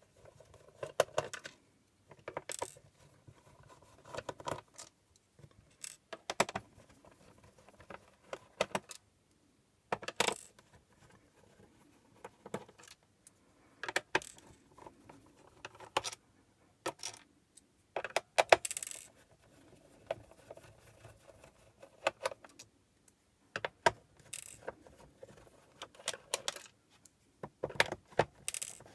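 Irregular light clicks and metallic clinks, one every second or two: a screwdriver working screws out of a rugged laptop's plastic bottom cover and the small metal screws being set down one by one on a wooden workbench.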